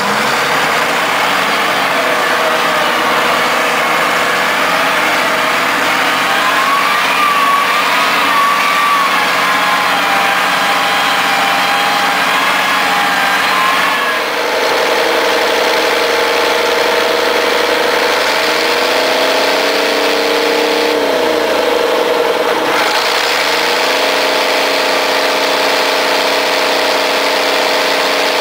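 Old Bray wheel loader's diesel engine running steadily from inside the cab, its pitch dropping and climbing back a couple of times in the second half as the revs change.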